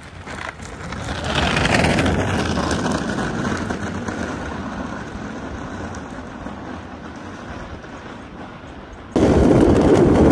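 DIY electric skateboard with hub motors rolling past on coarse asphalt: the wheel rumble builds, peaks about two seconds in, then slowly fades as the board moves away. About nine seconds in it gives way abruptly to a louder, steady close-up rumble of the wheels on the road while riding.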